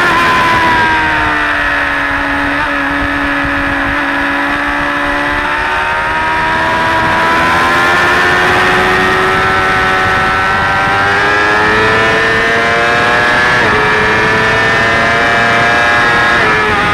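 Suzuki GSX-R600 K4's inline-four engine heard on board: the revs fall as the bike slows into a bend, hold low through it, then climb steadily under acceleration. A sudden drop in pitch about thirteen and a half seconds in is a gear change, and another comes near the end, over a steady rush of wind.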